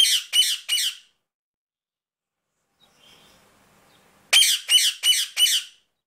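Indian ringneck parakeet squawking: a quick run of four high-pitched calls at the start, then, after about three seconds of quiet, another run of five.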